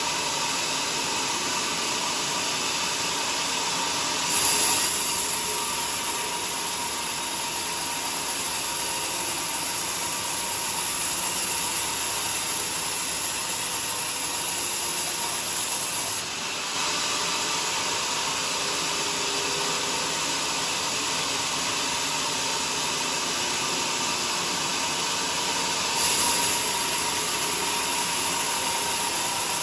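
Homemade sawmill running steadily with a faint steady whine. The sound changes abruptly about four, sixteen and twenty-six seconds in.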